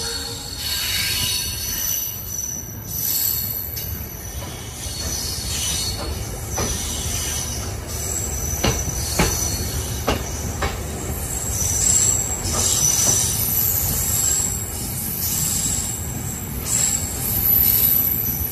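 Passenger train rolling slowly out of a station, heard from an open carriage doorway: a steady low rumble of wheels on the track with high squealing tones from the wheels. About halfway through come a few sharp clacks of wheels crossing rail joints.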